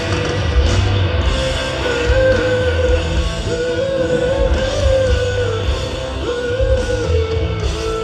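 Rock music played loud through a concert sound system: a sung melody of long held notes over a band, the voice dropping out near the end.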